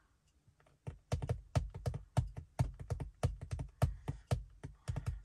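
Irregular quick taps and light knocks, several a second, beginning about a second in.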